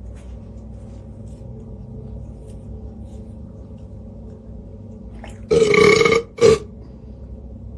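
A low steady hum, then two loud pitched vocal sounds: one lasting under a second about five and a half seconds in and a shorter one just after.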